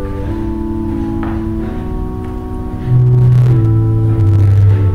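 Organ music: held chords that change every second or so, with deep bass notes coming in about three seconds in and making it louder.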